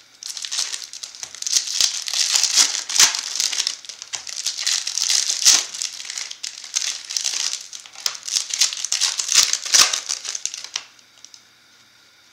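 Foil trading-card pack wrappers crinkling and rustling in bursts as packs are handled and opened. The crinkling stops about eleven seconds in.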